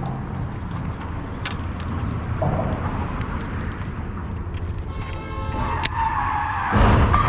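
Steady road-traffic rumble, then a high tyre squeal about five seconds in and a sudden loud crash near the end: a car crashing on the nearby road.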